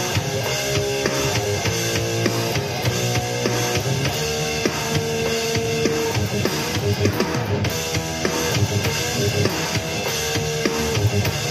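Heavy metal music: electric guitar over a fast drum kit, with a few long held guitar notes standing out around the middle and near the end.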